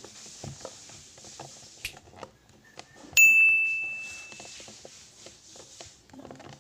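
A single bright ding about three seconds in, ringing out and fading over about a second, among small scattered clicks and taps.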